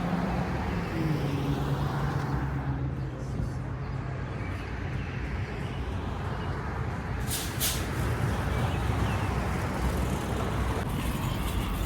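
Steady motor-vehicle noise: a low engine hum under a continuous wash of road noise.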